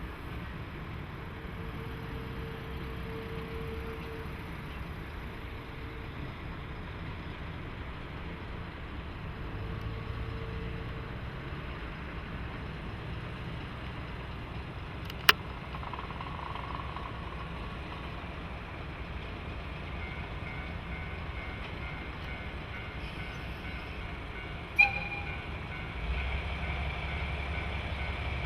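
DE10 diesel-hydraulic locomotive running steadily with its tank-car train, a low rumble that grows louder near the end. Two sharp clicks stand out, one about halfway through and one near the end.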